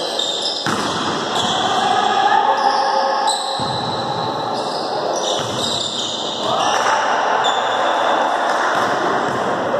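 Indoor volleyball rally echoing in a large sports hall: the ball being struck, with players' voices and movement on the court.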